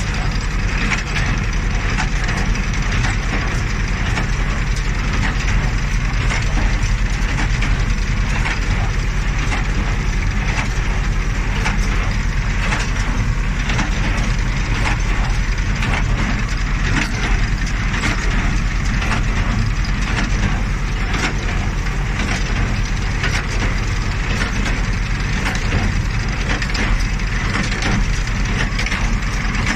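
New Holland 377 small square baler running while baling hay, a steady mechanical clatter full of sharp cracks and snaps as the hay is crushed and packed, over the low steady drone of the tractor's engine.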